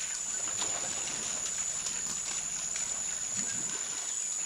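Steady high-pitched drone of a rainforest insect chorus, with faint scattered clicks and wet squelches as an African forest elephant's feet pull through soft mud.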